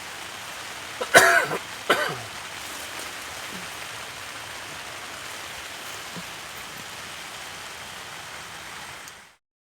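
A person coughs twice, sharply, about a second in, over a steady hiss of falling rain. The sound cuts off suddenly near the end.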